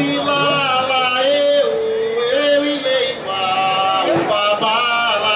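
Singing of a Candomblé chant, a voice holding long notes that step and slide between pitches.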